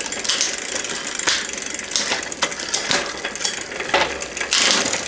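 Mongoose bicycle's drivetrain turning: the chain runs over the rear freewheel cogs and derailleurs with irregular clicking and ticking, and a longer rasping stretch near the end. In the high gears the chain rubs on the front derailleur, which the mechanic could not adjust out.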